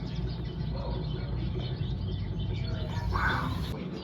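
Small wild birds chirping at feeders, heard through the room's speakers over a steady low hum, with a brief rush of noise about three seconds in.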